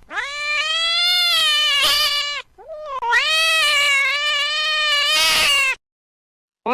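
A domestic cat giving two long, drawn-out meows, with a short rising note between them.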